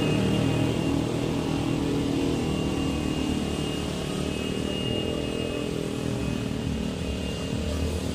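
Minibus engine running, a steady low drone that eases slightly in the first few seconds, with a faint thin high whine above it.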